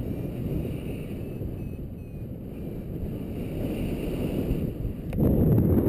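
Wind noise from airflow buffeting the microphone of a camera on a paraglider in flight, a steady low rumble. It jumps abruptly louder a little after five seconds in.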